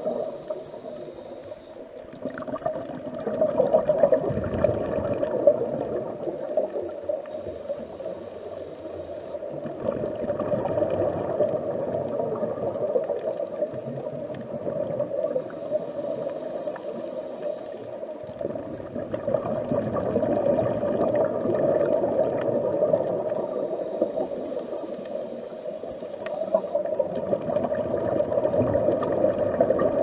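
Underwater sound of a scuba diver's breathing: a bubbling, gurgling wash that swells and fades about every eight seconds, with a faint high hiss in the lulls between swells.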